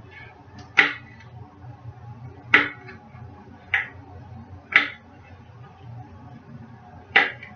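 Kitchen knife chopping a jalapeño pepper on a tray: five sharp knocks at uneven intervals, over a low steady hum.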